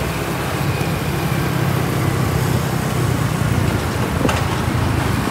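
Steady ride noise aboard a moving motorbike: the engine and rushing road noise, with other motorbikes around in traffic.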